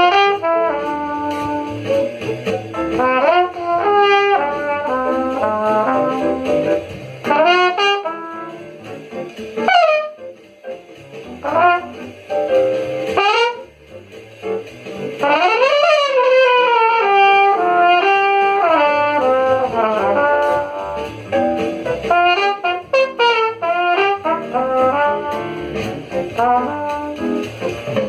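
Jazz played on brass instruments: busy melodic lines, with a few sweeping rises and falls in pitch.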